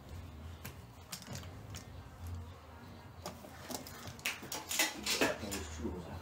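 Scattered clicks and light knocks of parts being handled and fitted on a tractor diesel engine during reassembly, with a denser run of sharper clicks about four to five seconds in.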